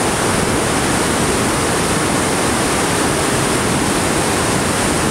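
Steady, loud rush of white water as the Rideau River pours over Hog's Back Falls and through the dam spillway below the bridge.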